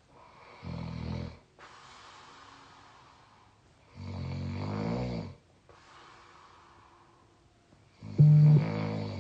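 A person snoring in sleep: two snores on the in-breath, each followed by a long airy out-breath, the second snore sliding up in pitch. Near the end a loud buzzing tone of steady pitch starts abruptly and is the loudest sound here.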